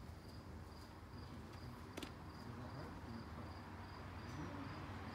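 Cricket chirping steadily, a short high chirp about twice a second, with a single sharp click about two seconds in.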